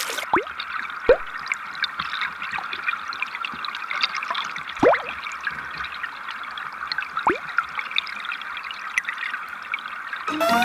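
Mountain valley stream running over rocks, a steady babble with a few bubbling plunks that rise quickly in pitch.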